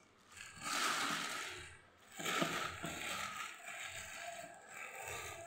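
Thin plastic bag crinkling and rustling as it is handled and opened, in two louder bursts over the first few seconds, then quieter handling.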